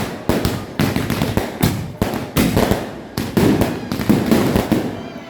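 Fireworks going off in quick succession: a dense run of sharp bangs, about three a second, overlapping one another with no gap.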